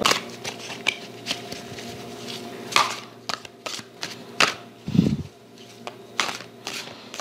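A deck of cards being shuffled by hand, a quick, irregular series of soft clicks and slaps as the cards are pulled through. There is a soft low thump about five seconds in.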